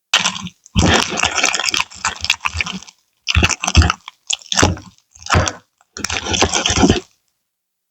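Nail polish slime being squeezed and pressed by hand, crackling and popping with small sharp clicks. It comes in about six short bursts, each broken off by a sudden silence.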